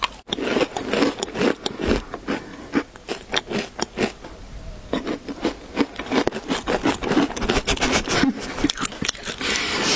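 Close-miked crackling and rubbing from pastries and their packaging being handled and eaten: a dense, irregular run of small crackles and scrapes.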